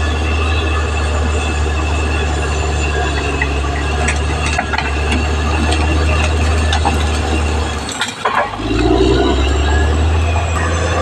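Caterpillar D6R XL bulldozer at work: its diesel engine runs steadily, with scattered metallic clanks from the crawler tracks. The engine note drops out briefly about eight seconds in, then picks back up.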